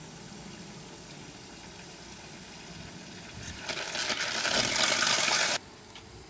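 Water from a model Savery steam engine's delivery pipe pouring into a glass bowl with a steady splashing hiss. About three and a half seconds in, it gives way to a much louder, spluttering hiss as steam and water spurt from the pipe, the sign that the chamber has run empty of water. The hiss stops suddenly near the end.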